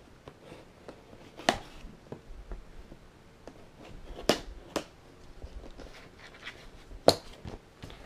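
A cardboard toy box being opened with scissors: scattered small clicks and scrapes with a few sharp snaps as the seal is cut and the flap pulled open, the loudest about seven seconds in.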